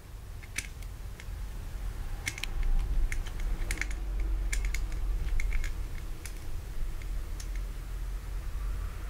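Dog's toenails being cut with a hand-held ZAN pet nail clipper: a string of sharp, irregular clicks, several in quick succession around the middle. Under them is a low rumble of handling.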